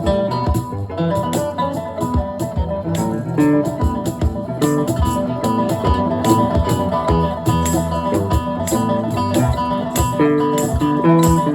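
Live band playing an instrumental passage led by guitar, with a steady beat.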